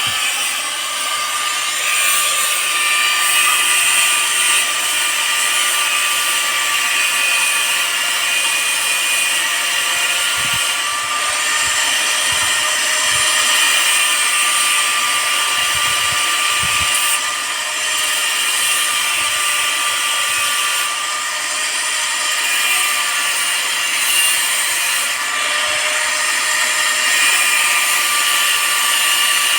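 Electric cutter machine running with a steady high-pitched whine, its level dipping briefly a couple of times.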